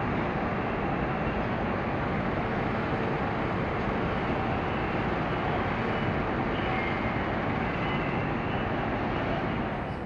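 Steady drone of a large car ferry's machinery and ventilation while it lies at its berth, with faint steady tones running through it. It stops abruptly near the end.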